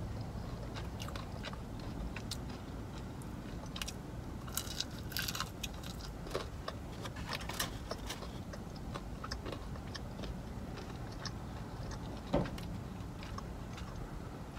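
Close chewing and crunching of breaded fried food, with a dense run of crisp crunches about a third of the way in and one louder knock near the end, over a steady low hum.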